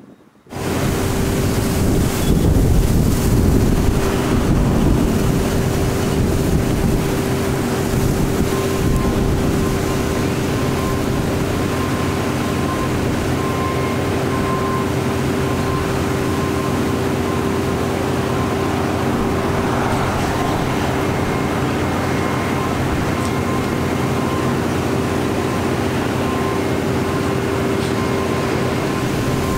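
Steady mechanical drone: a constant hum over a rushing noise, starting abruptly about half a second in and holding level, with a faint higher tone coming and going.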